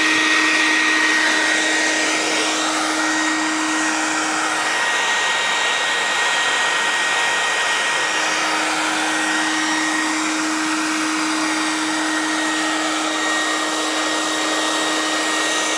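Bee vacuum running steadily, its hose sucking honey bees off the ceiling board: a loud, even rush of air with a steady hum and a thin whine in it. The hum drops away for a few seconds in the middle, and the sound starts and cuts off suddenly.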